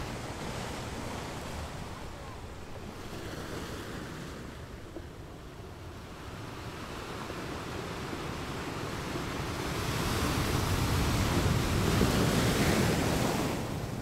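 Ocean surf washing on a shore: a wave builds over several seconds, is loudest for a few seconds near the end, then falls back.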